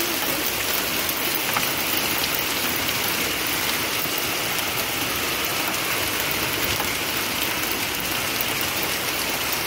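Hail and rain falling hard and steady, a dense even hiss with small hailstones ticking on a car's trunk lid and the ground.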